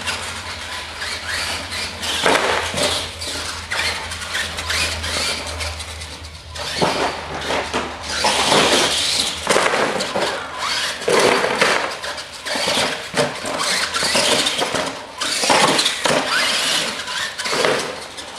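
R/C monster truck tearing around on a concrete shop floor: its tyres squeal and scrub in repeated surges as it accelerates, turns and wheelies, over the running of its drive motors.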